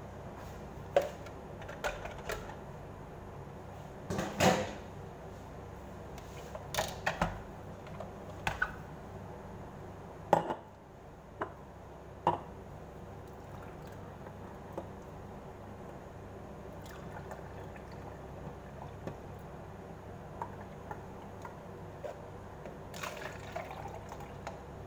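Glasses and a plastic juice jug knocking and clinking as they are handled on a counter, with a dozen or so sharp knocks in the first half and only a few light ticks after. Near the end, orange juice is poured from the jug into stemmed glasses.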